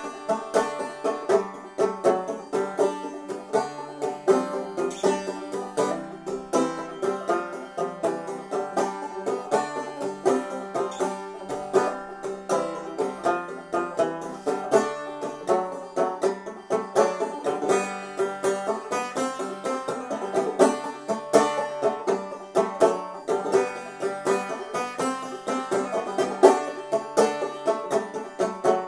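Five-string banjo in open G tuning (gDGBD) played clawhammer style, an instrumental passage with a steady rhythm of plucked notes and brushed strums.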